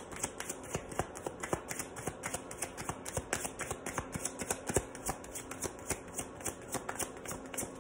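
A deck of tarot cards being shuffled by hand: a fast, uneven run of soft card clicks and snaps.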